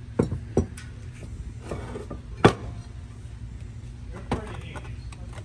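Heavy metal brake parts clunking as they are handled and set down on a steel platform scale: a few knocks, the loudest about halfway through as the stock rotor-and-caliper assembly goes onto it, over a steady low hum.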